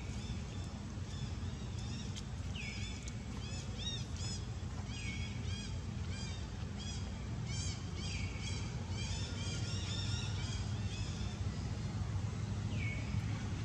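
Animal calls: runs of quick high-pitched chirps, with a few falling squeals in between, over a steady low hum.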